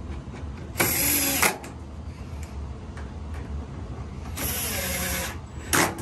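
Cordless electric screwdriver driving screws into a dryer's sheet-metal front panel, running in three short bursts: about a second in, a longer one at about four and a half seconds, and a brief one just before the end.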